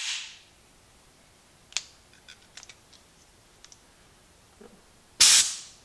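A short blast of compressed air from a hand blow gun, about half a second long near the end, driven through the small entry-port passage of a coffee carafe lid to blow out coffee residue. Before it come a few light clicks of the plastic cap and nozzle being handled, and at the very start the hiss of an earlier blast dies away.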